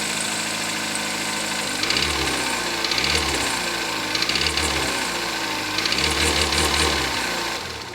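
2016 Kia Soul's four-cylinder engine idling and then revved several times, each rise in revs bringing out a fast, heavy knocking that sounds like it's chewing on some gravel. The owner suspects the bottom end and the connecting rods.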